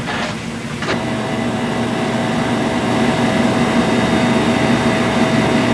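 A steady droning hum with a few held tones, setting in about a second in after a brief burst of noise.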